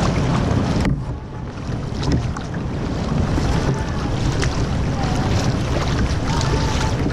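Wind buffeting the microphone on a kayak, a steady low rumble that eases briefly about a second in, with small splashes and ticks of water against the paddle and hull.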